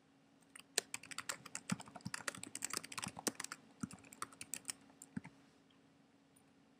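Someone typing a short sentence on a computer keyboard: a quick run of keystrokes that stops about five seconds in.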